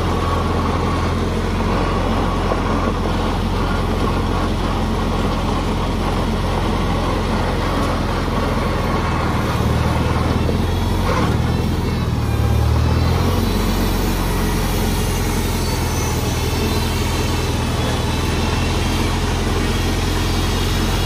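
The 1960 International Harvester Cub Lo Boy's four-cylinder flathead engine runs steadily as the tractor is driven, heard close from the driver's seat. The engine note shifts briefly about halfway through, then settles again.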